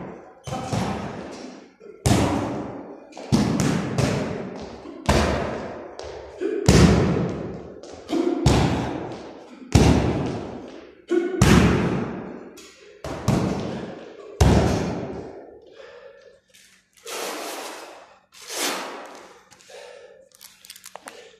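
A heavy hanging punching bag being struck with punches and kicks: about a dozen hard thuds, one to two seconds apart, each ringing on in the echoing concrete room. The strikes stop about fifteen seconds in, leaving only a few fainter sounds.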